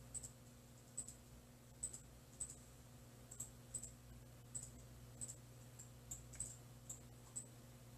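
Near silence: room tone with a steady low hum and faint, irregular small clicks, about one or two a second.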